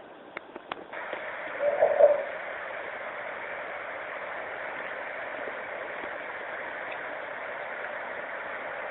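A steady rush of running water starts suddenly about a second in, after a few faint clicks. Just after it starts, someone gives one loud, short throat-clearing.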